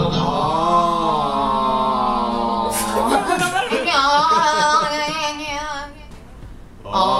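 Singing with long held notes. About three seconds in it changes to a wavering sung tone, which drops away for about a second near the end.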